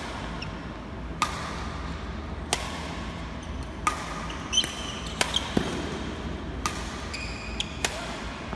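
Badminton doubles rally: about six sharp racket hits on the shuttlecock, evenly spaced a little over a second apart, with short high squeaks of shoes on the court floor in between.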